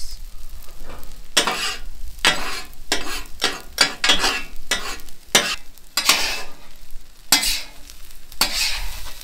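Metal spatula scraping and sweeping fried rice across a hot steel flat-top griddle in repeated strokes, about one a second, with the rice sizzling on the hot surface. This is the last mix of the finished fried rice.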